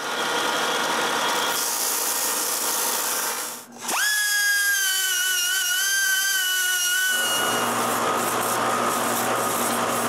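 Power sanding on wood in three short cuts. First a scratchy sanding noise, then a handheld high-speed rotary tool with a small sanding point spins up about four seconds in and whines steadily at a high pitch. About seven seconds in it cuts to a lower, steady motor hum with sanding noise from a motor-driven sanding drum.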